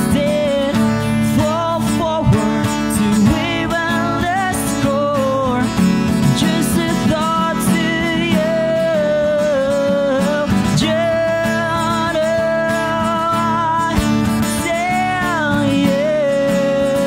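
A male singer singing a melody over a strummed acoustic guitar, played live as an unplugged duo.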